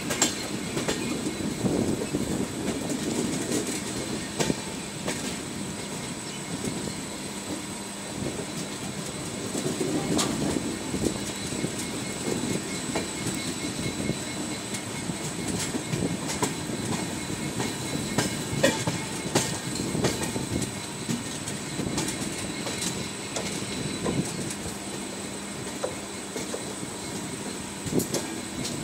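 Indian Railways passenger coach running along the track, heard from the doorway of the moving train: a steady rumble of wheels on rail with irregular clacks as they pass over rail joints.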